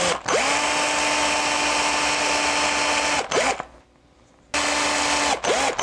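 Cordless drill running in reverse to bore a small eye socket into a carved wooden crankbait body. The motor whine rises as it spins up, runs steady for about three seconds and winds down. After a short pause it runs again, ending in a few quick pulls of the trigger.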